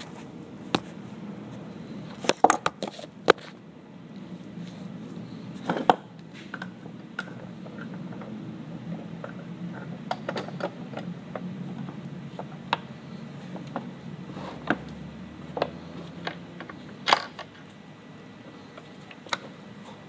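Scattered clicks and knocks of metal being handled as a seat belt pretensioner is clamped into a bench vise and wired up. There are about a dozen, several of them sharp, over a steady low hum.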